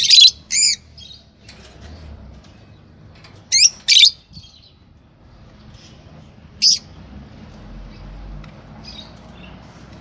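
Lovebirds calling: five sharp, shrill chirps in three clusters, two right at the start, two close together about three and a half seconds in, and one near seven seconds, with faint chattering between them.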